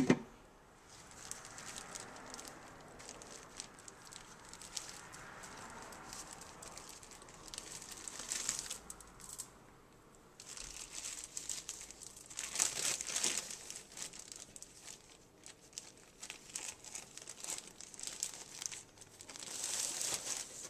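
Plastic tortilla package crinkling and rustling as it is opened and handled, in irregular bursts that are loudest about halfway through and near the end.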